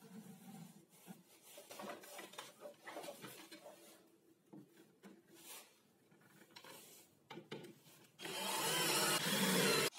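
Quiet rubbing and light knocks of a plywood board being handled and set in place. About eight seconds in, a cordless drill starts running steadily, driving a screw through the plywood top into a wooden leg; this is the loudest sound.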